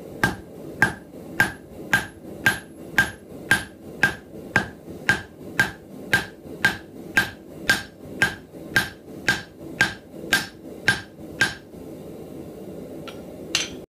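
Hand hammer striking a hot 3/16-inch round steel bar on an anvil face, flattening the bar's end. It lands in a steady rhythm of about two blows a second, each with a short metallic ring. The blows stop about two seconds before the end, and one more strike follows near the end.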